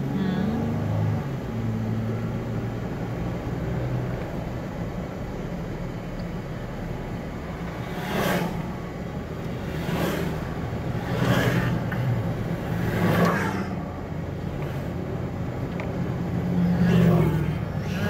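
Steady engine and tyre noise heard from inside a four-wheel drive's cabin while driving on beach sand, with several short rushing swells in the middle and a louder swell near the end as an oncoming vehicle passes close by.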